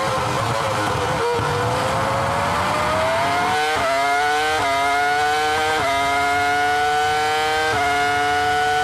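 Ferrari F2004 Formula 1 car's 3.0-litre V10 heard onboard at high revs: the pitch sinks through the first second or so as it slows for a corner, then climbs again as it accelerates, dipping sharply at each of four quick upshifts.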